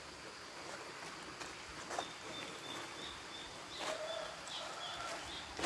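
Footsteps crunching on dry leaf litter, a few separate steps, and from about two seconds in a bird's short high chirps repeating about three times a second over a steady background hiss.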